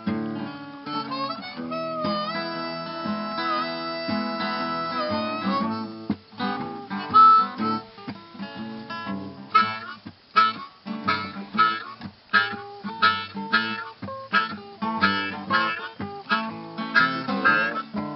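Acoustic guitar and harmonica music: long held harmonica notes over guitar in the first few seconds, then a run of quick, evenly paced picked guitar notes.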